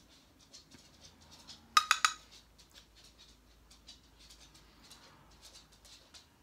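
A makeup brush and a plastic highlighter compact being handled: faint scratchy brushing and ticking, with a short clatter of four or five sharp clicks about two seconds in, the loudest sound.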